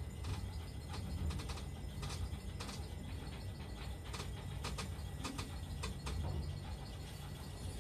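Funicular cabin running down its track: a steady low rumble with irregular sharp metallic clicks and ticks from the running gear.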